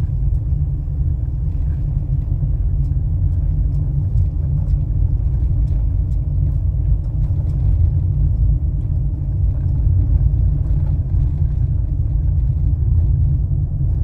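Car driving slowly along a street: a steady low rumble of engine and road noise.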